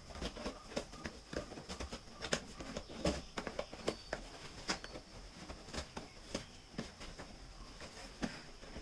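Scissors cutting into a thick cardboard shipping box: a string of irregular sharp snips and crackles of the cardboard.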